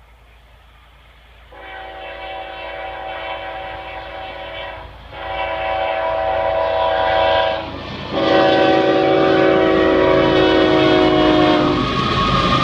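Union Pacific diesel freight locomotive's horn sounding three long blasts, a chord of several tones. Near the end the horn stops and the locomotive's rumble comes up as it draws near.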